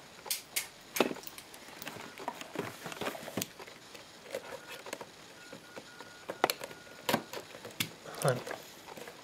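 Hands handling and opening a cardboard retail box: a scatter of sharp clicks and taps from the cardboard flaps and panels, with light scraping between them.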